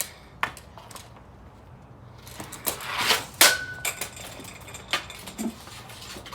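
Hockey stick working a puck in a toe-drag into a quick release shot: scattered light clicks and knocks of the blade on the puck, with one sharp loud clack about three and a half seconds in, followed by a brief ringing tone.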